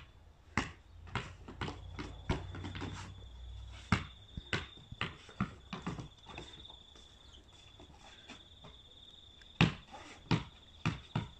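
Basketball bouncing on a timber deck as it is dribbled, a sharp thud about every half second, stopping for about three seconds in the middle and starting again near the end. A steady high-pitched tone runs underneath from about two seconds in.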